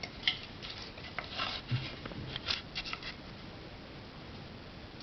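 A run of light clicks and short rustles from something being handled by hand, over about the first three seconds.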